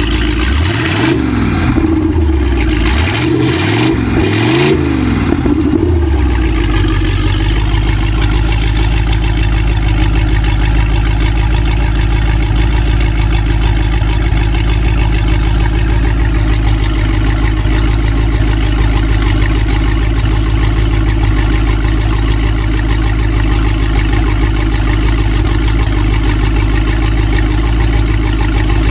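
Freshly remanufactured engine on a run test, revved up and back down about three times in the first six seconds, then settling to a steady idle.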